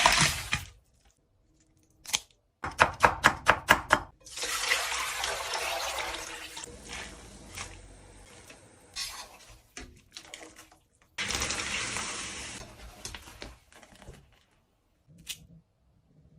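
Kitchen tap running water into a sink in two spells of a few seconds, with a quick run of about six knocks before the first and scattered clicks of dishes between.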